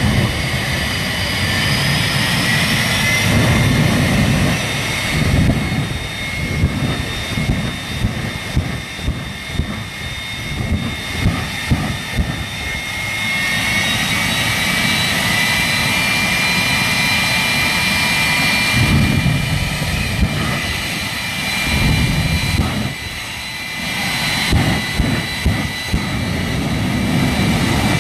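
Jet engine on a monster fire truck running and blasting its exhaust flame onto a car. A steady high turbine whine sits over a rough low roar, and the whine steps up in pitch about halfway through. Sharp pops come in a string in the middle and again near the end.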